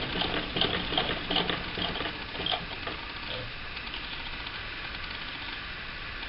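Vintage Frister and Rossmann transverse-shuttle sewing machine stitching at an even rhythm, about three stitches a second, then stopping about two and a half seconds in.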